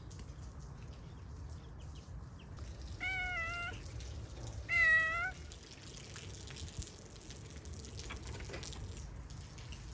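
Domestic cat meowing twice, each call about half a second long, about three and five seconds in; the second meow is louder.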